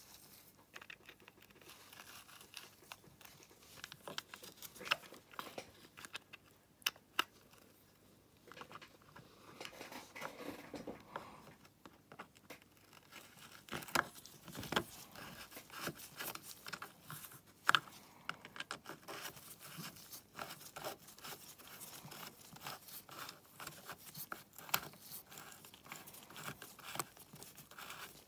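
Plastic air filter housing being fitted to a pocket bike's carburettor and its screw driven in with a nut driver: scattered light clicks, taps and scraping, with a few sharper clicks standing out.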